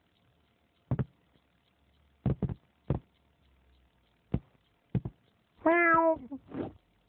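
Cartoon cat jumping on a sleeping man in bed: about seven short, soft thumps, some in quick pairs, then a loud drawn-out meow near the end, its pitch dropping slightly as it ends, followed by a short second cat sound.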